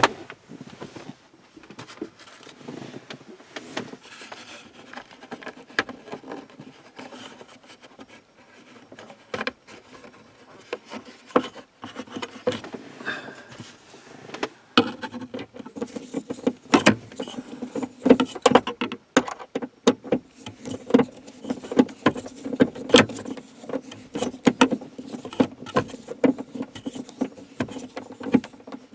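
Screws being driven into a plastic interior light housing with the bit driver of a multi-tool pocket knife: a run of small clicks and scrapes, sparse at first and coming quicker and louder from about halfway.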